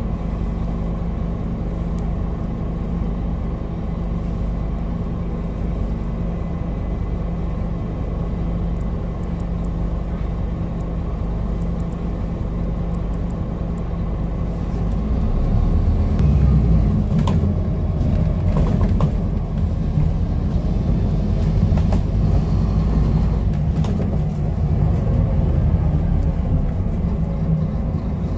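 Scania N230UD double-decker bus's five-cylinder diesel idling steadily, heard from inside on the upper deck, then pulling away about halfway through and growing louder, with light rattles and clicks from the bus body once it is moving.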